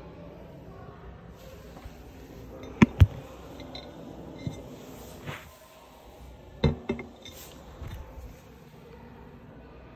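Porcelain toilet tank lid being handled, clinking against the ceramic cistern: two sharp clinks about three seconds in, two more near seven seconds, with softer knocks between.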